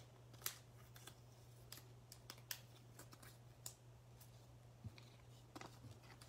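Faint, irregular clicks and flicks of stiff, glossy chrome baseball cards being slid and flipped through by hand, over a low steady hum.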